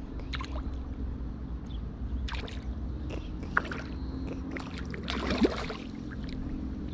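A hooked herabuna (Japanese crucian carp) splashing and thrashing at the water surface as it is played on the line, loudest about five seconds in, with a few short splashes and clicks before it. A steady low hum runs underneath.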